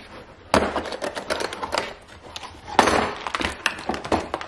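Clicks and clatter of a hard plastic torque wrench case being unclasped and opened, with the wrench shifting in its molded tray. Sharp knocks stand out about half a second in and again near three seconds in.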